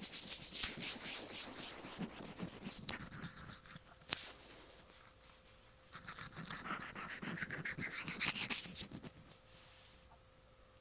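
Rubbing and scratching right on an earphone microphone. There are two bouts of quick, crackly strokes, each about three seconds long, with a lull and a single sharp click between them.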